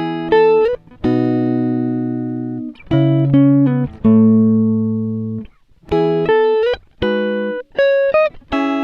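Background music: a plucked-string melody, like a guitar, of single notes and held chords that fade after each pluck, with short breaks between phrases.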